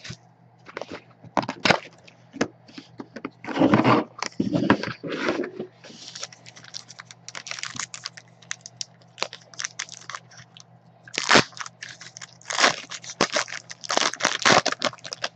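A trading-card box and its wrapping being torn open and handled: irregular tearing, crinkling and crackling of plastic wrap and cardboard, loudest about four to five seconds in. A steady low electrical hum runs underneath.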